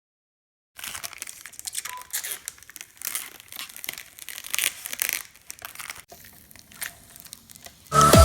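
Plastic or paper packaging being handled, crinkling and tearing in irregular rustles with small clicks.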